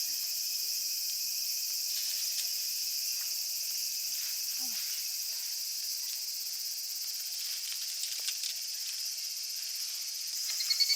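Steady high-pitched chorus of insects at dusk; near the end a higurashi (evening cicada) starts its rapid, evenly pulsing call.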